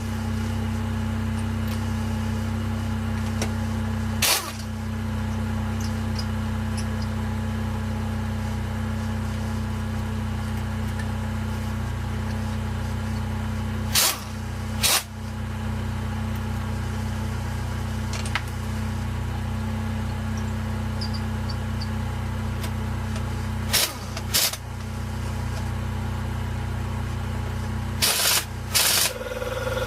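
Jeep Wrangler's 2.5-litre engine idling steadily while driving an onboard air compressor, with short bursts from a pneumatic impact wrench, one alone and then three pairs about a second apart.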